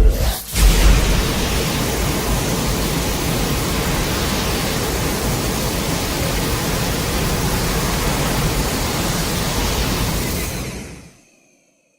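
A sudden loud burst about a second in, then a steady rushing noise that fades out near the end.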